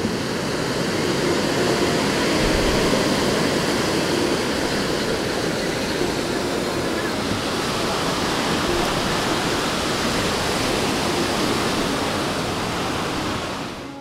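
Sea waves breaking on a beach: a steady, continuous rush of surf that fades briefly at the very end.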